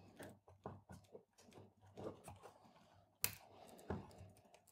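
Faint small clicks and scratching as fingers pick and peel hot glue off a battery's spade-terminal connector, with a sharper click a little past three seconds.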